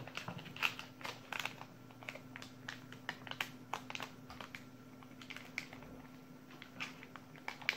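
Plastic anti-static bag being handled, giving irregular quick crinkles and clicks.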